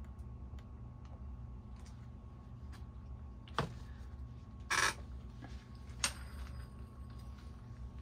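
A 26-inch Minka Aire Spacesaver ceiling fan running steadily on a low speed: a low motor hum with a faint steady whine. A click comes a little past three seconds in, a brief louder rush of noise about a second later, and another click at about six seconds.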